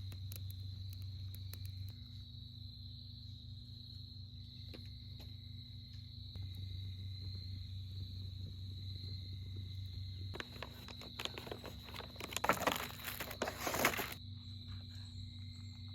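Insects, crickets by the sound, trilling steadily at one high pitch, with scattered faint clicks. About ten seconds in, a burst of rustling and crackling lasts some four seconds, then stops.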